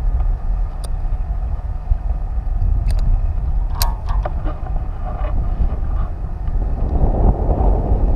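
Strong wind buffeting the camera's microphone: a steady low rumble that swells near the end, with a few sharp clicks a few seconds in.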